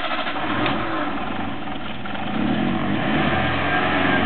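Old carburettored Toyota Corolla petrol engine running just after a restart, growing louder about two seconds in and settling into a steady run near the end.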